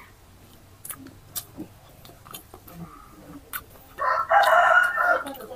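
A rooster crows once, about four seconds in, for about a second and a half. Before it there are only soft clicks and taps of someone eating with their hands from a plate.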